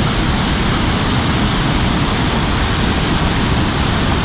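Steady rush of a small waterfall close by: water pouring down over rocks in an even, unbroken noise.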